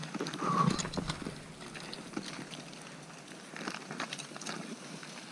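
Irregular crunching, scraping and rustling of people moving through wet snow with their gear, busiest in the first second.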